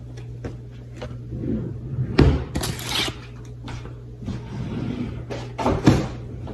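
Kitchen handling noise: a few sharp knocks and bangs, like a cupboard or oven door and cookware being moved, with a short rustle between them, over a steady low hum.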